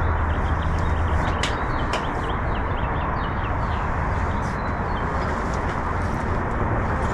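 Small birds chirping, many short quick calls in a run, over a steady, even background noise.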